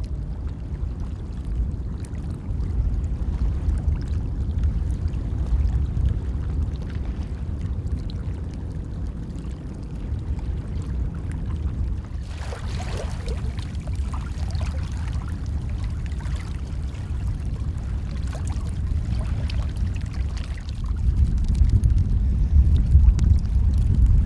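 Steady low rumble over the sea, with shallow water trickling and lapping from about halfway through.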